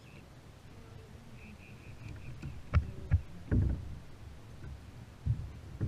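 A few knocks and thumps against a kayak hull as a redfish is landed and handled aboard, the loudest about three and a half seconds in, over a low rumble of wind. A faint run of high chirps sounds in the first half.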